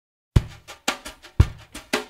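Intro music begins about a third of a second in with a drum-kit beat: bass drum and snare hits alternating about twice a second.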